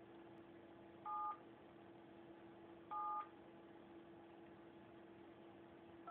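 Two short DTMF touch-tone beeps from the pushbuttons of a replica KITT switchpod as they are pressed, about two seconds apart. Each beep is a two-note chord lasting about a third of a second, over a faint steady hum.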